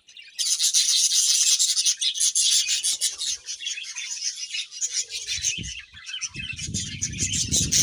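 Budgerigars chattering in a dense, scratchy warble of rapid clicks and chirps. About six seconds in, a low rumbling noise joins it.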